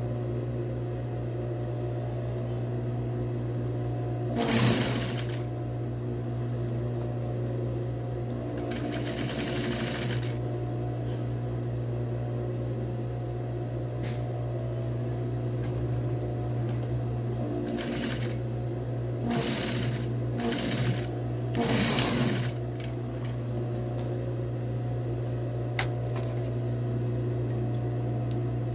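Industrial sewing machine stitching fabric in several short runs, over a steady motor hum.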